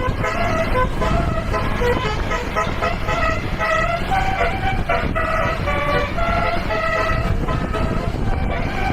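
Bus 'telolet' musical horn of the Basuri type playing a quick tune of short, changing notes, two or three a second, over a continuous engine and road rumble.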